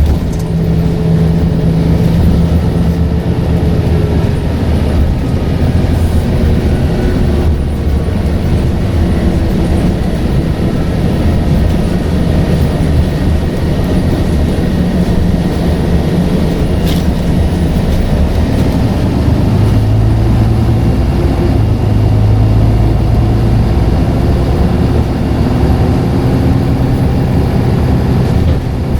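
Scania N94UD double-decker bus's five-cylinder diesel engine running while the bus is under way, its note falling and rising several times, with a faint high turbo whistle over it.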